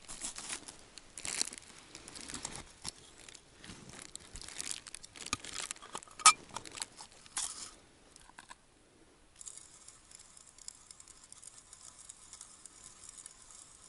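Dry groundbait rustling and scraping as it is scooped by hand into a metal cone-shaped ice-fishing bait feeder, with scattered clicks of the feeder being handled and one sharp click about six seconds in. It goes quiet after about nine seconds, leaving only a faint steady hiss.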